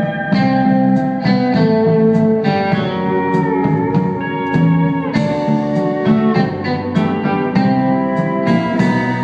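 Instrumental band playing live: pedal steel guitar and electric guitar over bass, plucked notes with several that slide in pitch.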